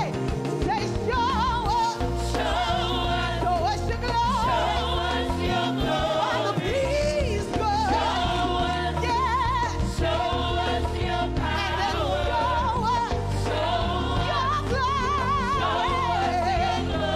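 A gospel praise team of several women singing together with vibrato into microphones, over an instrumental accompaniment with a steady bass line.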